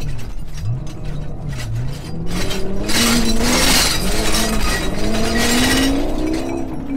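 Hundreds of loose glass cups and wine glasses clinking and clattering together in an SUV's cargo area as it bounces over rough ground, with a heavier burst of rattling glass from about three seconds in. Underneath, the engine revs up and down.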